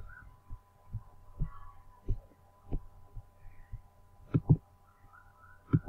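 Irregular soft low thumps, roughly one every half second to second, the loudest pair about four and a half seconds in, over a faint steady hum.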